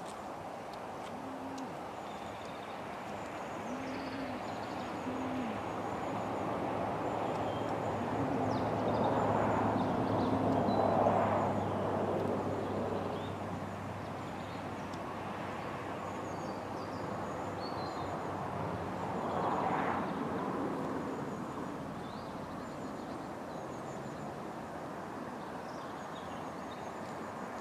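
Outdoor ambience at dusk: short, low hooting calls now and then, faint high bird chirps, and a broad rushing noise that swells and fades twice, loudest about eleven seconds in and again near twenty seconds.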